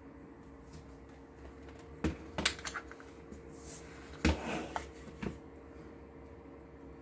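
Sharp plastic clicks and knocks from a Soar RGX-K2 gaming keyboard being handled, in two short clusters about two seconds apart, followed by one last single click.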